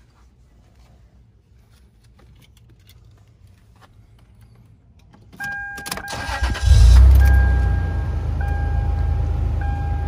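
A 2002 Toyota 4Runner's engine being started: a second or so of cranking begins about five seconds in, the engine catches with a loud surge about a second later, then settles into a steady idle, heard from inside the cab.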